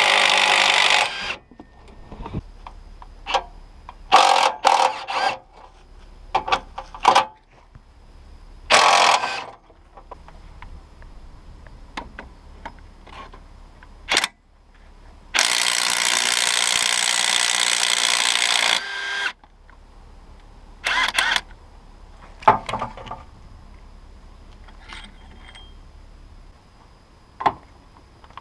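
Ingersoll Rand W5152 20 V brushless cordless compact impact wrench hammering on rusty fasteners in separate runs. There is a short run at the start, several brief runs, and one long run of about three and a half seconds past the middle.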